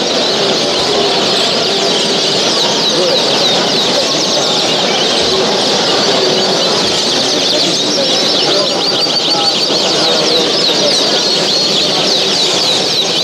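Many cage birds chirping and singing at once, a dense chorus of fast trills and chirps that grows busier about two-thirds of the way through.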